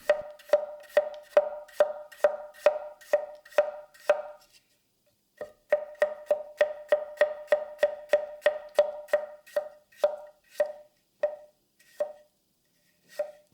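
Kogatana knife slicing vegetables on a cutting board with push and pull cuts: even knocks about two a second, each ringing briefly with a short clear note. They pause about four and a half seconds in, then resume and slow to a few spaced knocks near the end.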